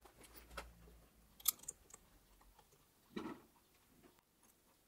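A few faint metal clicks and taps as a vernier caliper's jaws are set against steel gauge pins seated in the dovetail of a steel tool post holder, about four light contacts spread over a few seconds.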